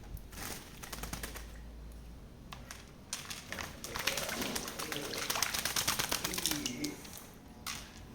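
Lory parrot bathing: fast, busy splashing and wing-fluttering in water, a dense patter of small splashes that builds up about three seconds in and eases off near the end.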